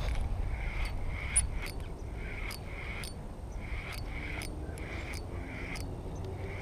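Low wind rumble on the microphone, with faint animal calls repeating every half second or so and a few light clicks.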